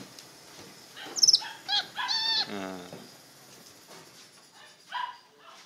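A few short, high-pitched animal calls: a quick falling whistle, a couple of chirps, then a louder squeaky call about two seconds in, and one more short call near the end.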